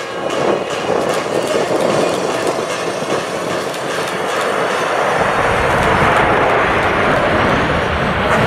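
Jet roar from a formation of eight Alpha Jet trainers with twin turbofan engines, passing overhead and climbing. The roar deepens and grows slightly louder about five seconds in.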